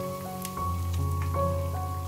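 Background music with held notes and a bass line, over the crackle of battered tempe slices deep-frying in hot oil.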